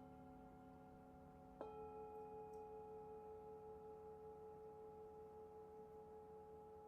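Faint singing bowl struck once about one and a half seconds in, ringing on with several steady tones and a slow wavering in loudness, over the fading ring of an earlier strike.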